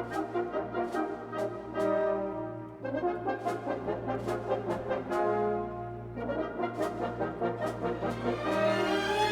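Background music: sustained brass-like chords over a steady beat of sharp percussive hits, with a rising sweep near the end.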